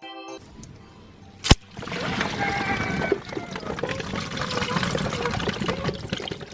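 Water balloon packed with soaked water beads (orbeez) bursting with one sharp pop, then a dense wet pouring and spilling of beads and water.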